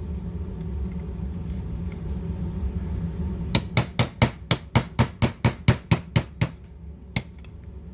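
A heavier hammer tapping a punch in a quick run of about sixteen sharp metal taps, then one more, to drive a stubborn, paint-glued part out of a Beretta 71 pistol's alloy frame. The part comes free with the blows.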